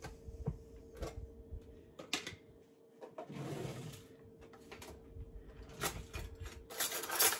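A plastic yogurt tub being opened and a kitchen utensil drawer rummaged through: scattered clicks and knocks, a scuffing slide about three seconds in, then utensils clattering loudest near the end.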